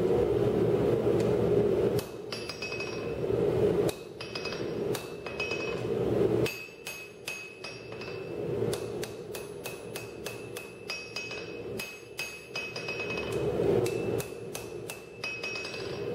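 Hand hammer striking a red-hot steel bar on an anvil, each blow ringing metallically, as the vise spring stock is forged flat. A few spaced blows over a steady rushing noise come first; from about six seconds in the rushing drops away and the blows come quickly and evenly, about two or three a second.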